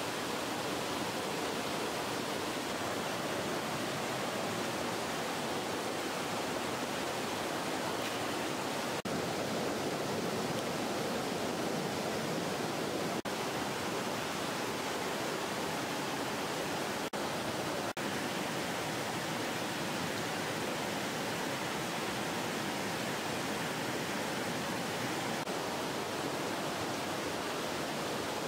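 Steady, unbroken rush of flowing water from a stream.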